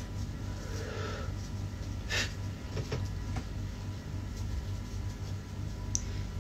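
Quiet room tone: a steady low hum with a few soft rustles and clicks, the clearest about two seconds in and again near the end.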